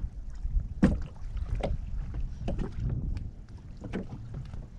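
Wind rumbling on the microphone aboard a small boat at sea, with several irregular knocks from the boat.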